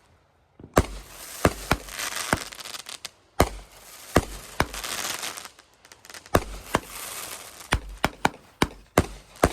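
Fireworks going off: a rapid string of sharp bangs, well over a dozen, with a crackling hiss between them, starting about a second in after a brief hush.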